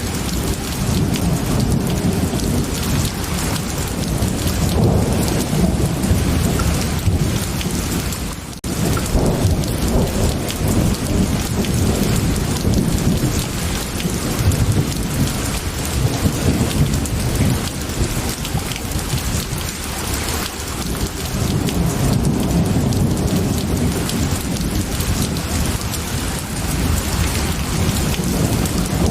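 Steady heavy rain with a continuous low rumble of thunder. The sound drops out briefly about eight and a half seconds in, then resumes.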